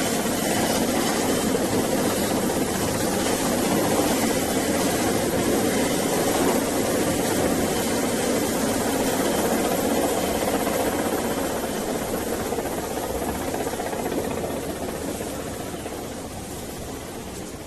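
Steady, heavy engine noise of a vehicle running continuously, fading away over the last several seconds.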